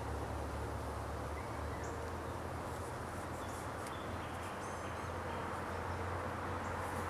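Outdoor ambience: a steady hiss of background noise over a low hum, with a few faint, brief high bird chirps.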